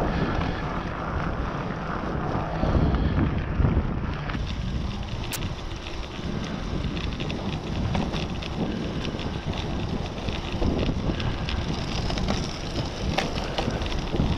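Wind rushing over the microphone of a camera on a moving bicycle, with the rumble of the tyres on the road. From about four seconds in, a steady crackle runs under the wind.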